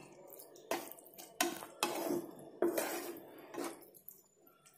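A spatula stirring thick okra masala curry in a nonstick frying pan, scraping and knocking against the pan in about five separate strokes before it falls quiet near the end.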